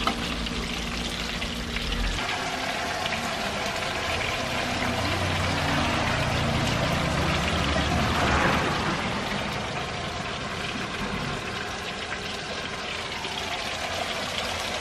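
Catla fish slices deep-frying in a large pan of hot oil, a steady sizzle.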